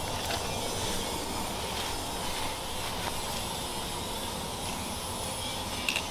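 Steady background hiss with no distinct events, then a couple of very short hisses from an aerosol spray-paint can near the end.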